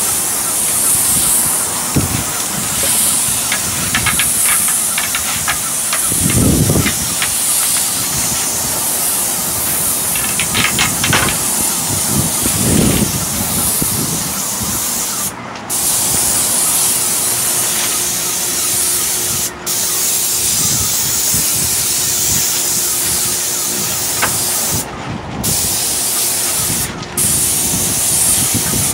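Graco airless paint sprayer: a steady hiss of paint atomising from the spray gun's tip. The hiss breaks off briefly a few times in the second half.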